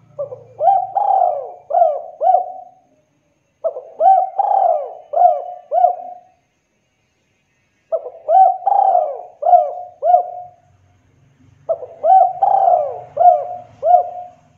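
Spotted dove cooing: four phrases about four seconds apart, each a short run of four or five arching coo notes.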